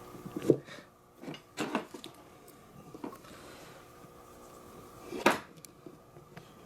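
A few scattered metallic clinks and knocks from hand tools and wiring hardware being handled while power wires are hooked up to the winch solenoid's terminals, the loudest one about five seconds in.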